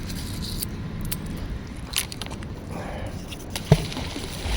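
Steady low wind rumble on the microphone, with scattered light clicks and a sharp knock about three and a half seconds in.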